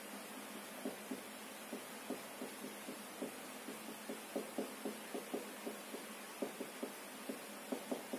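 Marker pen tapping and scraping on a whiteboard as symbols are written: short, irregular light knocks, two or three a second, over a faint steady hiss.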